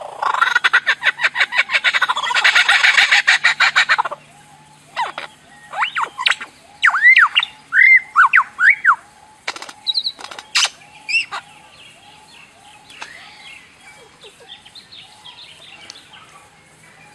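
Birds calling: a loud, rapid pulsed chatter for about the first four seconds, then a run of short arched whistled notes, a few sharp calls about ten seconds in, and fainter calls after.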